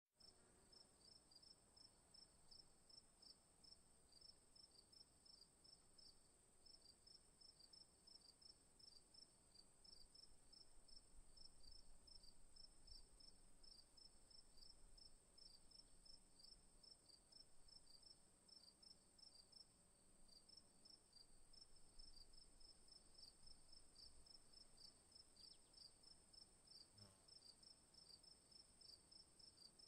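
Crickets chirping, faint: a steady high trill with a regular run of short, evenly spaced chirps beneath it.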